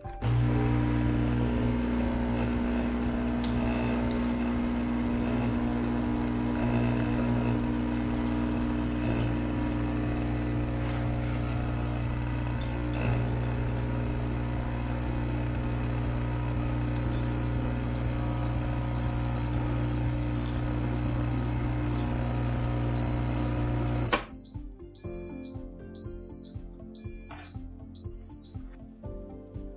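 De'Longhi Dolce Gusto Mini Me capsule machine's pump running with a steady, loud buzzing hum as it brews a hot-chocolate capsule, cutting off suddenly about 24 s in. From about 17 s a digital probe thermometer's alarm beeps high and regular, about one and a half beeps a second: the drink has passed the 63 °C alarm setting. The beeping carries on after the pump stops, over a few handling knocks, and ends near the close.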